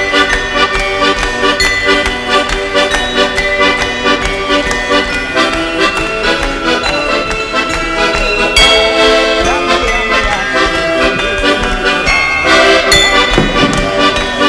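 Traditional folk music led by an accordion, with many held notes over a steady beat.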